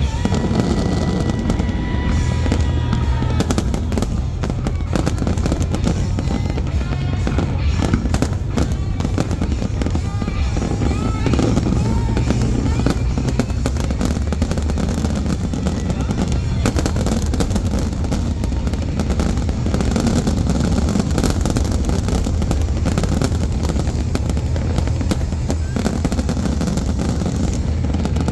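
Fireworks bursting continuously: a dense run of bangs and crackles over a constant low rumble, with a steady high whistle for the first few seconds.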